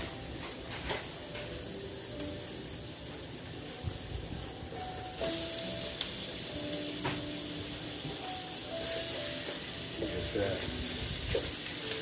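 Chopped onion and garlic sizzling in a frying pan. About five seconds in, raw ground beef goes into the hot pan and the sizzle gets suddenly louder. A wooden spoon then stirs and breaks up the meat.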